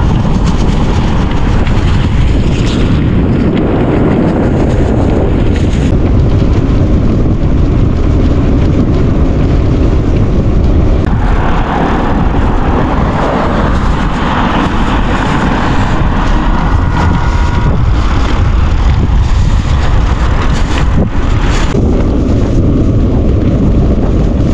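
Steady, loud wind buffeting on the microphone while riding, a dense low rumble with rushing noise above it.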